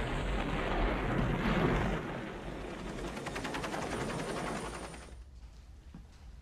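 Film-soundtrack explosion: a big rumbling blast, joined from about two and a half seconds in by a quick run of sharp cracks. It cuts off about five seconds in, leaving only faint sound.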